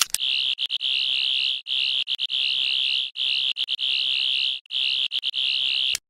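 Recreated 13th Doctor sonic screwdriver sound effect: a high, warbling electronic buzz in four bursts of about a second and a half each, every burst opening with a brief stutter.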